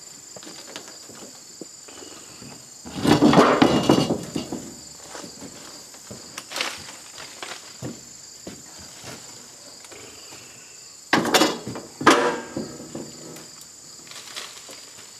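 Two loud bursts of rustling and swishing, about three seconds in and again near eleven seconds, as a rope is thrown up through leafy branches and over a tree limb, with smaller rustles between. Insects keep up a steady high buzz underneath.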